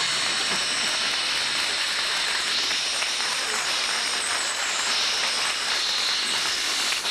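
Compressed gas hissing steadily from a hose nozzle off a red pressurised bottle, blown into clothing to dry it.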